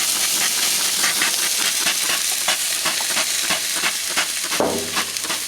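A microwaved baseball that has caught fire, sizzling and crackling with a dense run of sharp pops over a steady hiss.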